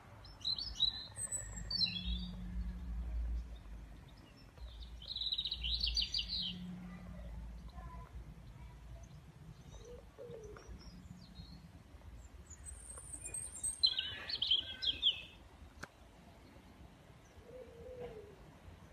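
Birds chirping in short bursts, three main clusters of high chirps, over a faint low steady rumble.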